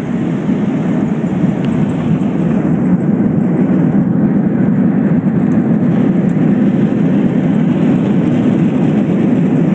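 Airliner cabin noise during landing: a loud, steady, low rumbling of engines and airflow that swells a little in the first second and then holds level.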